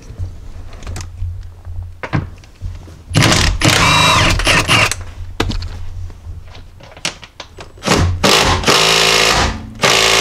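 Cordless impact wrench hammering in loud bursts, about three seconds in and again near the end, on rusted seat-bracket bolts and nuts that are seized and expected to snap.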